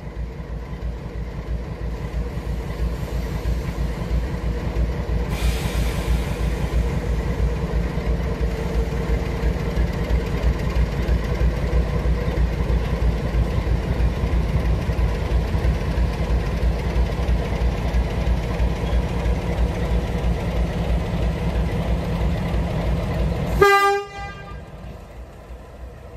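NSW 48 class diesel-electric locomotive passing at low speed, its diesel engine running with a steady low, pulsing throb that grows louder as it draws near. Near the end comes one short horn toot, and then the engine sound drops away sharply.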